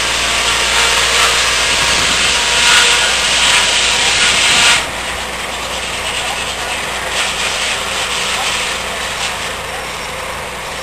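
Sawmill blade cutting through a log, driven by a Murphy diesel engine: a loud rasping hiss that drops off sharply about five seconds in, leaving the saw and engine running more quietly.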